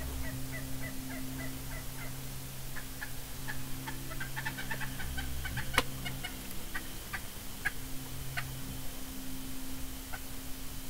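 Wild turkey calling: runs of short, sharp notes, an even series at the start and quicker clusters through the middle, with one loud sharp click about six seconds in.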